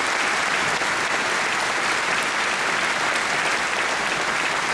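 Audience applauding steadily, a dense, even clapping from many people.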